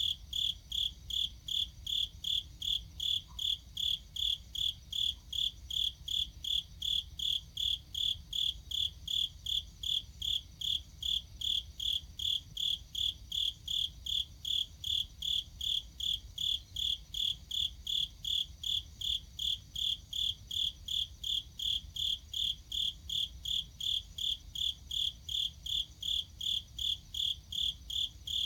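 A cricket chirping steadily and evenly, a high chirp about two and a half times a second, the same rate throughout.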